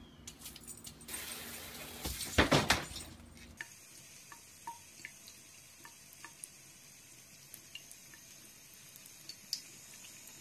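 Thin trickle of water from a bathroom sink tap, with small drip-like ticks about twice a second. Before it, about two and a half seconds in, comes a short loud burst of noise.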